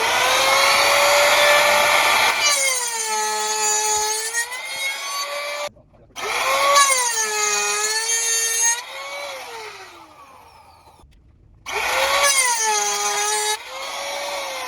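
Handheld electric power tool run in three bursts, its motor whining with a pitch that sags as it bites into the material and recovers. After the second and third runs the pitch glides down as the motor spins down on release of the trigger.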